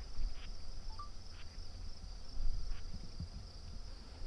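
Steady chorus of crickets, an even high-pitched trill that does not let up, over a low rumble.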